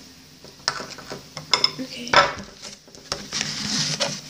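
A spoon stirring slime in a bowl, clinking and scraping against the bowl in a few sharp clicks, with a softer rustling stretch near the end.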